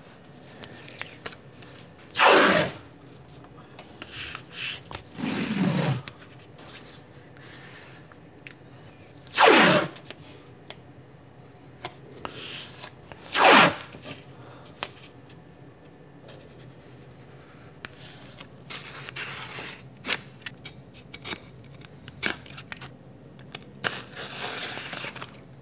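Blue painter's tape pulled off the roll in several quick rips, three of them loud, with softer rubbing and crinkling in between as the tape is pressed down onto an aluminum block and torn.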